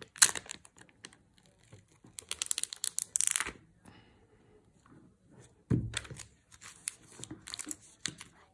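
Clear plastic packaging wrap on a smartphone box crinkling and crackling in irregular bursts as it is pulled off and the box is slid out of its plastic sleeve, with the longest, loudest rustle about three seconds in.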